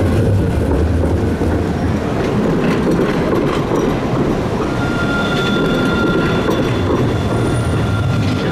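Alstom Citadis 403 low-floor tram passing close by, its wheels rolling on the rails with a few clacks. A steady high whine sets in about halfway through.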